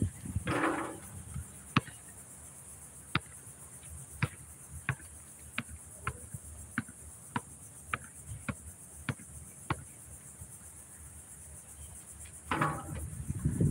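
A basketball dribbled on a concrete court: about a dozen sharp bounces, roughly one every 0.6 s, between a brief rattle as a shot meets the hoop about half a second in and another near the end. Insects buzz steadily in the background.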